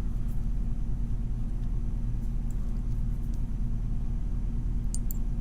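Steady low hum, with a few faint light clicks of a small hex key working in a brass padlock, the clearest near the end.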